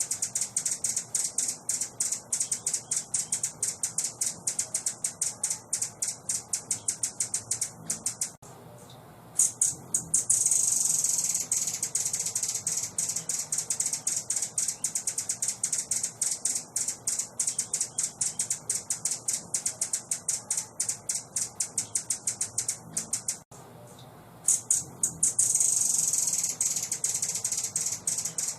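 A songbird's rapid, high chattering calls, many ticks a second. They break off briefly twice, about a third of the way in and again near the end, and after each break comes a couple of seconds of unbroken high trill. The same pattern repeats about every fifteen seconds.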